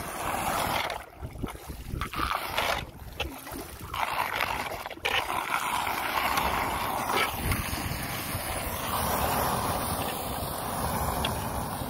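Floodwater rushing and swirling down a street storm drain that has just been cleared of leaves, with wind buffeting the microphone.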